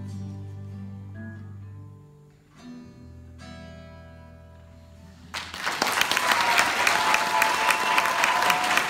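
Acoustic guitars let their final notes ring and fade, with a last plucked chord about three seconds in. About five and a half seconds in, an audience breaks into loud applause.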